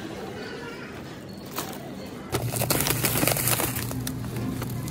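Plastic grocery packaging crinkling as it is handled. About two seconds in, a steady low hum from a freezer case comes in, along with louder crackling of a plastic bag of frozen shrimp being picked over.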